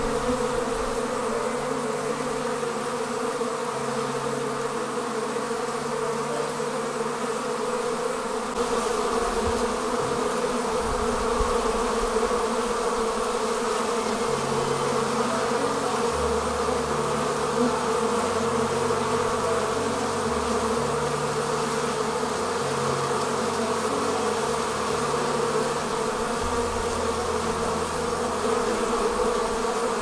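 Steady, dense buzzing of a large mass of honeybees at the hive entrance, many taking wing at once as the colony swarms out of the hive.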